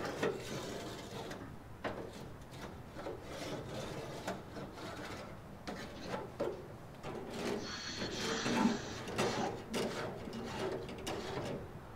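Scrubbing and scraping a greasy barbecue grill grate: irregular rasping strokes with scattered light clicks as the cleaner-softened grease comes off.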